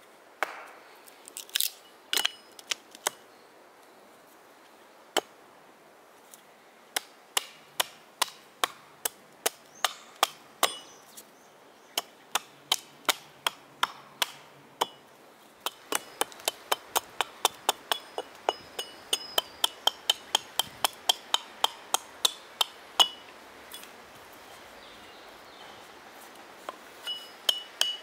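Small carving axe chopping a birch cup blank: sharp, quick strikes of the blade into the wood at a few a second, coming fastest in the middle stretch, with a short pause near the end before the chopping resumes.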